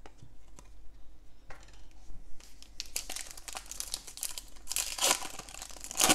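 Foil wrapper of a Donruss football trading-card pack crinkling and crackling as it is handled and torn open. The crackles come thick from about halfway through, loudest in two bursts near the end.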